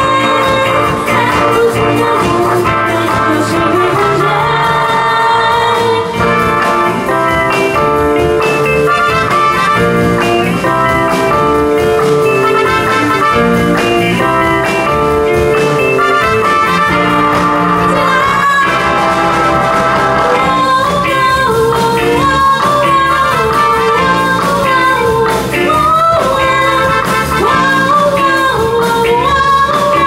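Live band playing with a woman singing lead into a microphone over electric bass, electric guitar and drums, amplified through the stage PA.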